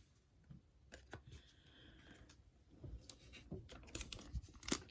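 Faint rustling and light clicks of trading cards being handled and shuffled, busier in the second half.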